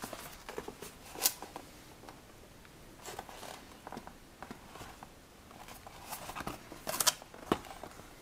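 Cardboard retail box holding a fabric tablet sleeve being handled and turned over in the hands: scattered rustles, scrapes and light knocks, the sharpest about a second in and again near seven seconds.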